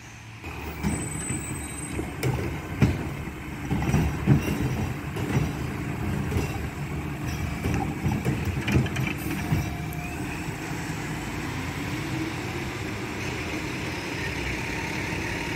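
Mack LR garbage truck's diesel engine running while its Heil Freedom automated side-loader arm handles a curbside cart, with a run of bangs and knocks from about one to ten seconds in. After that the engine runs on more steadily, rising a little in pitch near the end.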